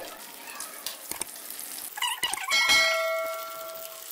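A slotted steel spatula knocks against the metal tawa while turning frying kababs: a few light clicks, then a cluster of clinks about two seconds in that leave a metallic ring lasting about a second and a half. Faint sizzling of the frying runs underneath.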